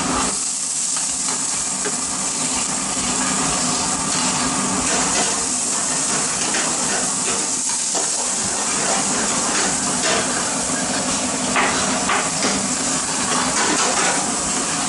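Lobster halves frying in a thick sauce in a pan, sizzling steadily, while a metal spoon stirs and scrapes against the pan with occasional light knocks.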